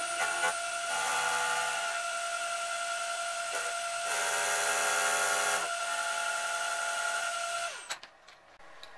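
Milling machine with a face mill running and cutting a metal block, giving a steady whine over a hiss, with a louder, rougher stretch of cutting about four to five and a half seconds in. Near the end the spindle is switched off and the whine drops away.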